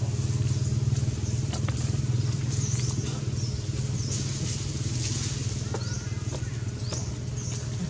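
A motor engine running steadily with a low, rapidly pulsing rumble, with several short high chirps heard over it.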